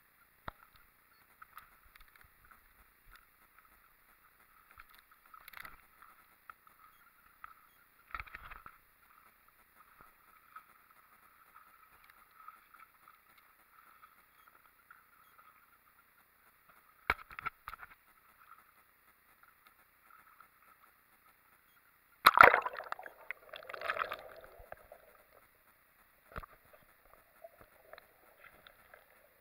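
Faint, muffled handling knocks and water sloshing against a waterproof camera, with a faint steady hiss underneath. A louder splashing burst comes about two-thirds of the way through as the camera goes under water.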